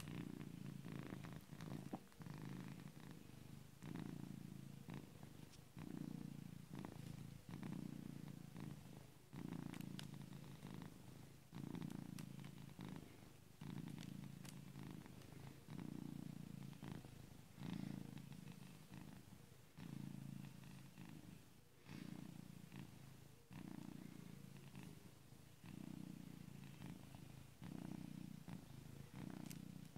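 Domestic black-and-white cat purring in its sleep, a very noisy rumble like a tractor. It swells and dips in an even rhythm about every two seconds.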